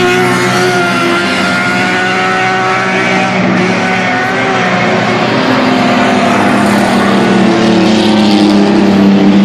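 Race trucks' engines running at speed around a dirt oval during a feature race. The engine note falls over the first few seconds, then climbs and gets louder near the end as a truck comes down the straight close by.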